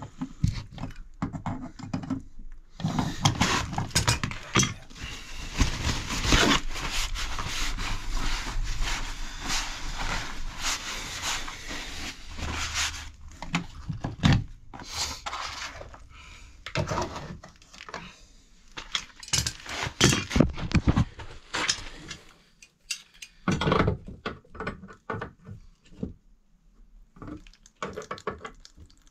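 Dirty water from a cracked-open radiator valve splashes through a drain catcher into a plastic bucket, over the clinks of pliers on the valve. After about a dozen seconds the splashing gives way to scattered knocks and clatters of pliers and plastic being handled.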